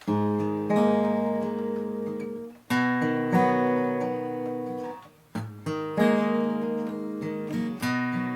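Acoustic guitar strumming chords as the intro to a song, each chord ringing out and fading before the next is struck, roughly every two and a half seconds.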